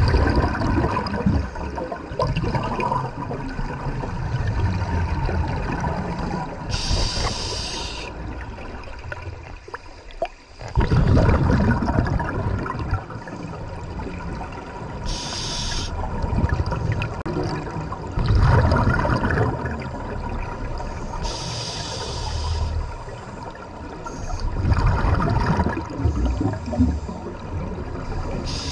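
Scuba divers breathing through their regulators underwater: bubbling, rumbling rushes of exhaled air come every six or seven seconds, with a short high hiss from the regulator in between each.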